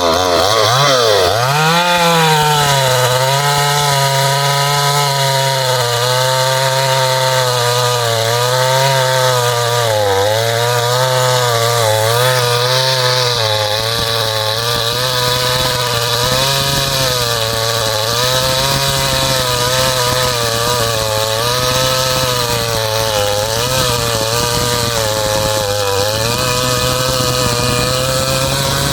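Ported 52cc two-stroke chainsaw running at high revs while cutting wood, its pitch sagging and recovering again and again as the chain bites. The owner finds the second-hand chain grabby, its depth rakers filed down too far.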